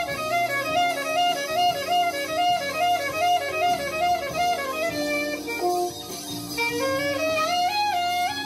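Alto saxophone playing a quick, repeating figure of notes, then climbing in pitch through a run of notes in the second half.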